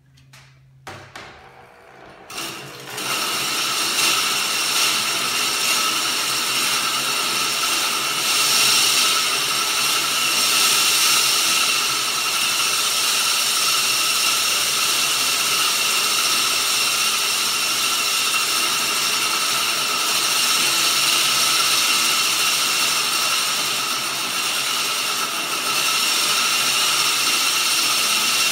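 The cutting reel of a Toro GreensMaster Flex 21 greens mower, spun backwards by an electric drill, grinds against the bed knife through lapping compound. After a few clicks it starts about two and a half seconds in as a loud, steady metallic rasp. It is very loud because the compound is what makes the contact between reel and bed knife, the early stage of backlapping.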